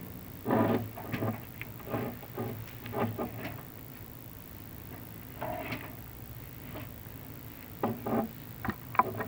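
Chimney inspection camera and its cable being lowered down a clay-tile flue, scraping and knocking in irregular bursts over a low steady hum.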